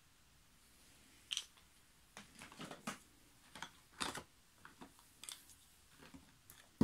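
Light clicks and taps of small plastic cosmetic packages and lipstick tubes being handled and set down in a cardboard box, with soft rustling. They start about a second in and come irregularly, with a sharper click near the end.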